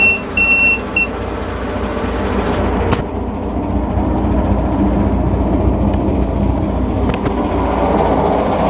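Yamaha marine turbo-diesel engine idling steadily just after starting, with the control panel's warning buzzer beeping a few times in the first second and then stopping. The engine gets a little louder near the end.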